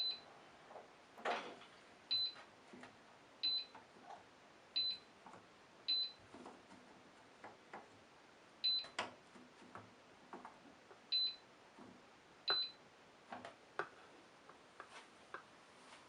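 Candy Bianca washing machine's control panel beeping as it is set up: about eight short high-pitched beeps, irregularly a second or two apart, with soft clicks of buttons or the program knob in between.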